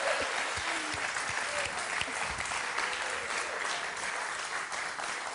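Studio audience applauding, the clapping slowly dying down.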